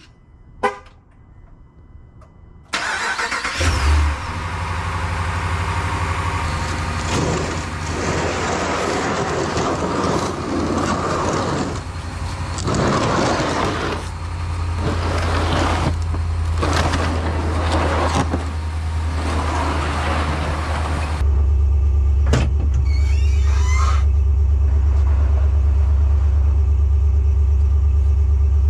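A short horn chirp, then about three seconds in a vehicle engine starts and runs with a steady low drone. Loud, shifting noise rises and falls over the engine for a while, and after about 21 s the drone becomes louder and steadier.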